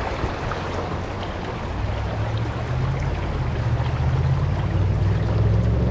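Small creek's water running steadily, with a low rumble that grows stronger about two seconds in.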